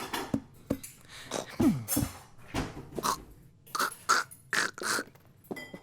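A string of short cartoon sound effects: brief cat-like vocal noises, one falling in pitch, mixed with soft clicks and knocks.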